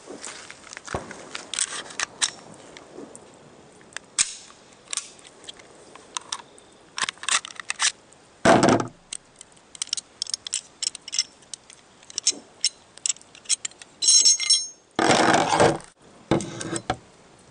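Clicks, scrapes and knocks of a Glock 17 slide being taken apart by hand on a wooden table, with its firing pin, springs and small metal parts handled and set down. There are a few louder knocks and a short ringing note about two-thirds of the way through.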